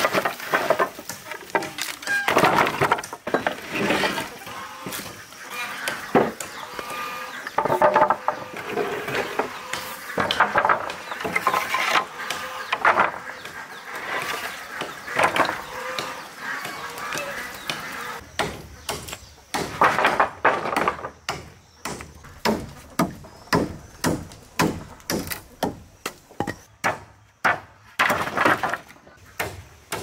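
Weathered wooden planks, bark slabs and poles clattering and knocking together as they are picked up and stacked, with a quicker run of knocks in the second half.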